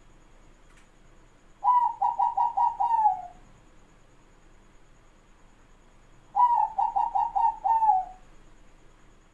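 Zebra dove (perkutut) cooing: two phrases about five seconds apart, each a quick run of about six coo notes that slides down in pitch at the end.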